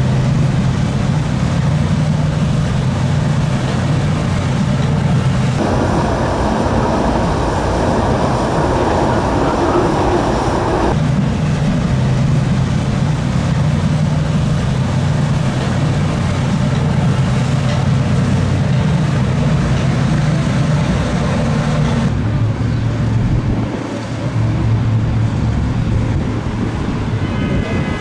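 Powerboat engines running steadily with a low drone, the sound changing abruptly three times.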